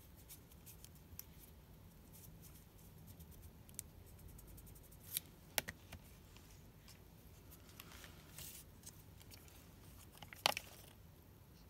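Faint handling of cardstock paper strips as they are curled into loops, light rustling with scattered sharp taps and ticks, the loudest about ten and a half seconds in.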